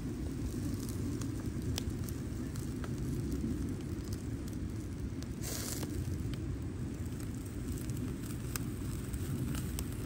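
Open cooking fire crackling, with scattered sharp pops over a steady low rumble and a brief hiss about five and a half seconds in.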